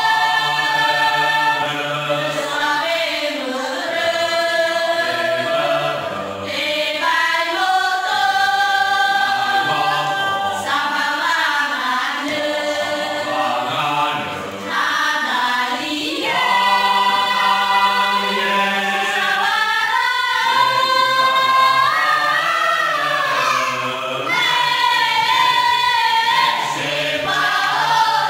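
Mixed choir of women's and men's voices singing a hymn unaccompanied, in several parts, with brief breaks between phrases.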